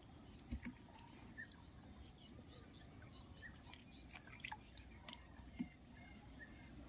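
Faint drips and small splashes of lake water as a wet fishing net is handled at the surface, with a few scattered small clicks.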